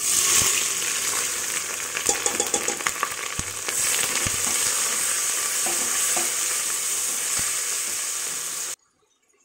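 Sliced onions sizzling in hot oil in an aluminium pressure cooker, the sizzle starting at once as they drop in, while a steel ladle stirring them knocks against the pot several times. The sizzle cuts off suddenly near the end.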